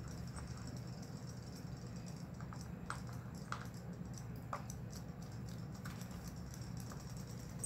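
A few light, irregular ticks and small water dabs as a cat paws at battery-powered robot fish toys swimming in a plastic tub, over a steady low hum.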